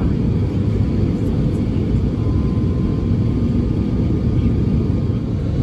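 Cabin noise of an Airbus A350-900 in descent, heard from a seat over the wing: a steady low rumble of its Rolls-Royce Trent XWB engines and the airflow.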